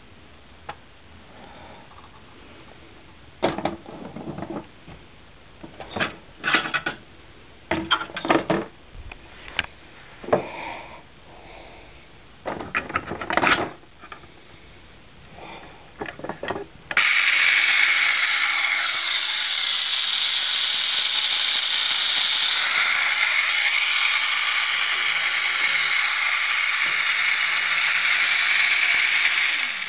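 Scattered clicks and knocks as the plastic hull and battery compartment of a battery-powered model warship are handled, then, about 17 seconds in, its small electric drive motor switches on and runs with a loud, steady buzzing whine that cuts off right at the end.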